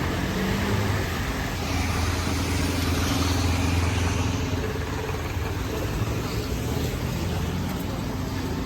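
A motor vehicle's engine running steadily, with a louder swell of noise about two to four seconds in.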